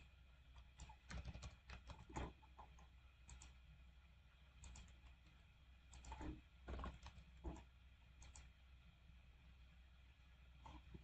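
Faint computer keyboard keystrokes in irregular short bursts, with gaps between them.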